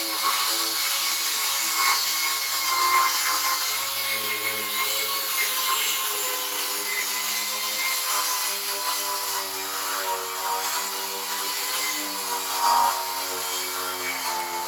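A vehicle's engine droning steadily with road noise, heard from inside the cab while driving, its pitch wavering slightly with speed.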